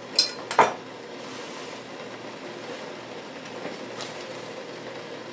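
Two quick clinks about half a second apart near the start, then the steady hiss of a saucepan of water heating on an electric stove as it comes up toward a boil.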